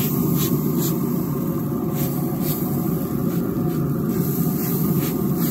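A hand spray bottle spritzing a smoking pork butt: several short hissing squirts at irregular intervals, over a steady low rumble.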